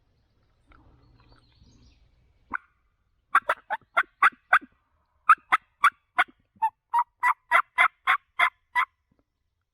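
Turkey yelps: a single sharp note, then two runs of short, evenly spaced notes at about four a second, the second run longer.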